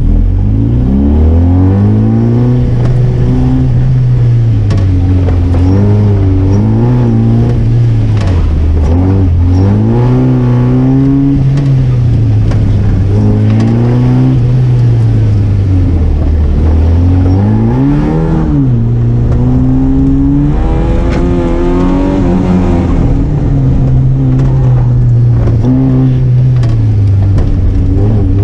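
Car engine driven hard through an autoslalom course. Its pitch climbs and drops every couple of seconds as it accelerates and backs off, with a deeper drop and a sharp climb about two-thirds of the way through.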